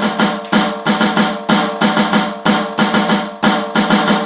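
Snare drum played with sticks in a fast, continuous triplet sticking, right-left-right-left counted "1 1 2 3", a close cousin of the Swiss Army triplet rudiment, with accents recurring about twice a second and the drum ringing under the strokes.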